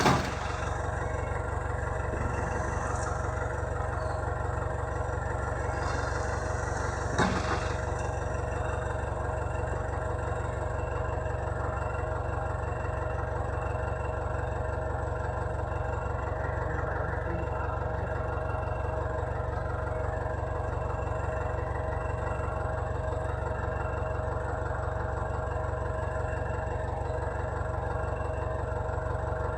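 Heavy construction machine's diesel engine running steadily, with a brief knock about seven seconds in.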